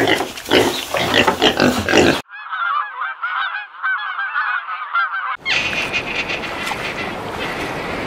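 Pigs grunting and squealing for about two seconds, then a cut to geese honking: many short honks overlapping for about three seconds. Another cut brings a dense, even noisy sound for the last few seconds.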